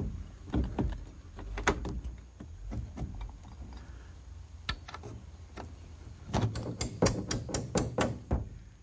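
Wooden greenhouse door being hung on its hinges in the frame: scattered knocks and clicks of wood and metal hardware, then a quick run of taps near the end.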